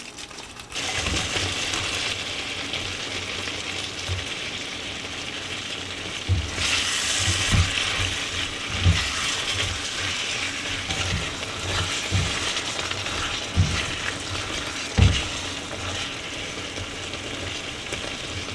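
Squid, cabbage and carrots in red chili sauce sizzling in a stainless steel wok. The sizzle starts about a second in, and there are a few dull knocks as a spatula stirs against the pan.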